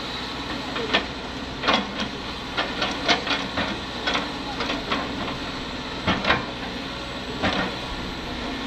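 Kobelco excavator's diesel engine running steadily under load, with a run of sharp knocks and clatter as the bucket dumps soil and clods into the steel bed of a dump truck.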